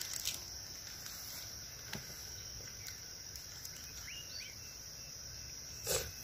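Steady high-pitched chirring of insects in grass, with a few faint rustles and clicks and one brief louder rustle or thump near the end.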